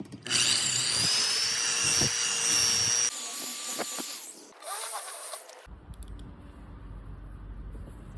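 A handheld electric power tool spins up with a rising whine and runs at speed for about three seconds, then runs again briefly. This is cutting or drilling work while the aftermarket radiator mounting is modified. Near the end there is a lower steady hum.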